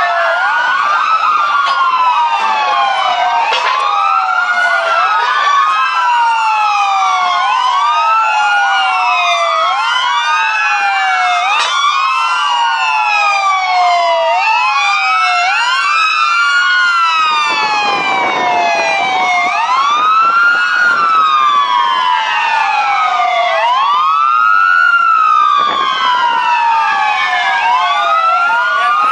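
Several fire-truck sirens wailing at once, each rising and falling in pitch out of step with the others, so the wails overlap without a break.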